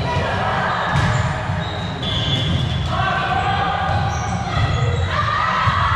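Indoor volleyball play echoing in a gymnasium: the ball is struck and bounces on the hard court, with a sharp hit about a second in, over players' voices calling out.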